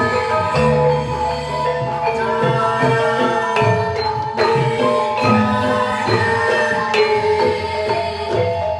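Javanese campursari ensemble playing: gamelan metallophones ringing a melody over kendang hand drums, with a deep note held for about a second and a half near the start.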